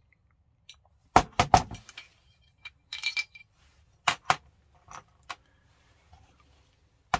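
Airsoft rifle receiver and small parts being set down and knocked on a tabletop. There are a few sharp clacks about a second in, a light metallic clink with a brief ring around three seconds, and then several more single knocks.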